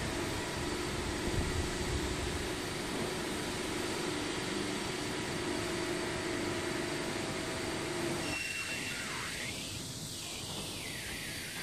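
Hydraulic CNC press brake running: a steady machine hum over a broad hiss, the hum dropping out about eight seconds in.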